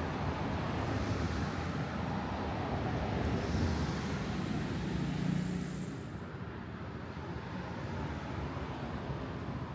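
Street ambience: a steady low rumble of road traffic, a little louder in the first six seconds, then easing off.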